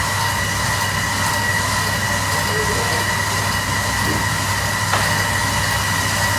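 A steady machine running noise with an even high whine and a low hum underneath, unchanging throughout.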